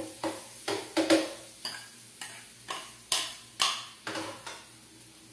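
Utensil stirring in a frying pan of sautéing onion and garlic, scraping and knocking against the pan about twice a second. The strokes die away about four and a half seconds in.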